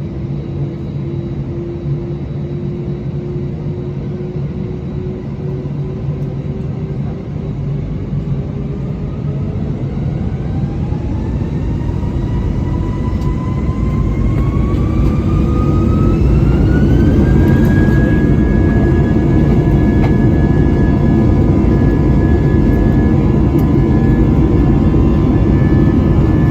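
Airbus A320's IAE V2500 turbofan engines heard from inside the cabin, spooling up to takeoff thrust. A whine climbs in pitch and the rush of noise grows louder, then past the middle it settles into a steady high whine over a loud, even roar.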